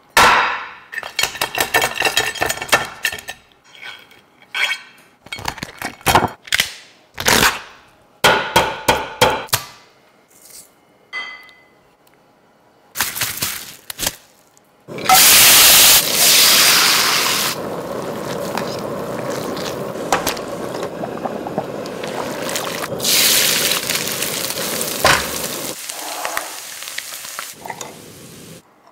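Kitchen food-preparation sounds. A run of crisp clicks and crunches fills the first ten seconds or so. From about halfway in, a long steady hiss starts loud and then eases to an even level before it fades near the end.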